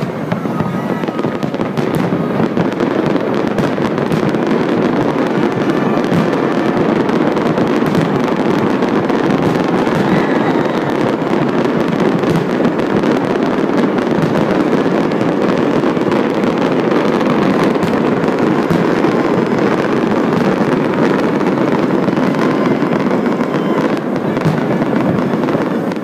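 Fireworks going off in a dense, unbroken barrage: many bangs and crackles overlapping with no pause, steady and loud.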